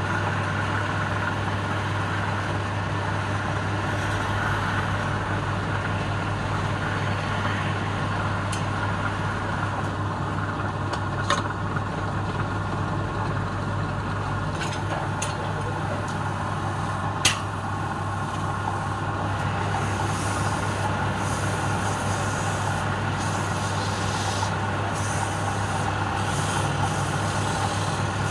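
Wood lathe running steadily with a low hum and an even rushing noise as the palm-wood piece spins while it is sanded and burnished by hand; a few sharp clicks in the middle.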